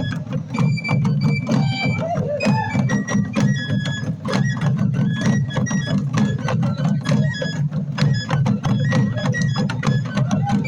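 Traditional music played live: rapid, continuous drum strikes, with short high held notes changing pitch above them.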